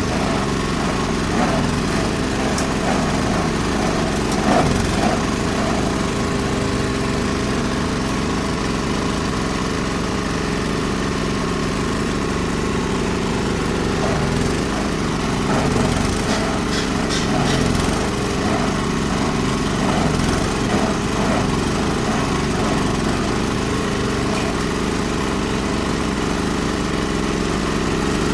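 Chopper-grinder machine driven by an 8 hp diesel engine, running steadily under load as it shreds and grinds material, with brief clattering a little past halfway.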